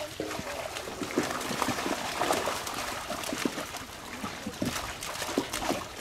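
Water splashing, trickling and dripping in irregular bursts as a fishing net full of catch is gathered and lifted in shallow, muddy water.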